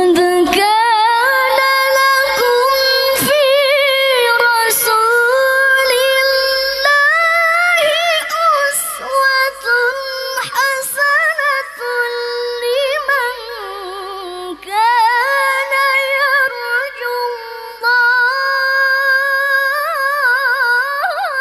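A woman reciting the Qur'an in the melodic tilawah style into a microphone, with long held notes and ornamented turns. The melody sinks low about 14 seconds in, then climbs again, with a few short pauses for breath.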